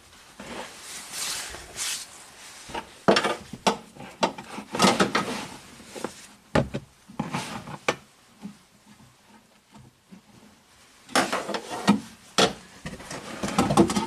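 Irregular plastic clicks, knocks and rubbing in clusters, as a wiring harness connector is worked at by hand to unplug it from an electronic module.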